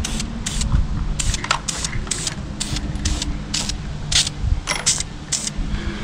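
Aerosol spray-paint can hissing in short repeated bursts, about two a second, over a low steady rumble.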